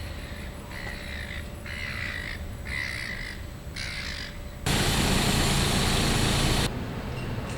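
A crow calling several times in a row with drawn-out, harsh caws, each about half a second long. About five seconds in, a loud rushing noise starts suddenly and stops after about two seconds.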